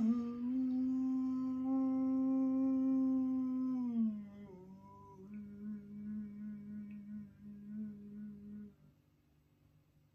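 A person singing long held vocal tones: one steady note for about four seconds, a short slide down, then a slightly lower note that wavers and pulses for about three seconds before stopping about nine seconds in.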